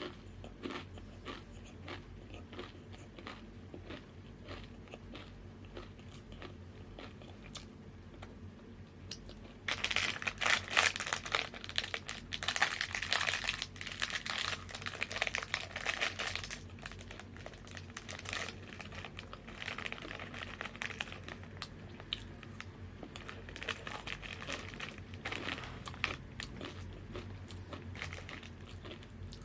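Tattoos chips being bitten and chewed close to the microphone. Light scattered crackles for about the first ten seconds, then a loud stretch of dense crunching lasting several seconds, then lighter, intermittent crunching as the chewing goes on.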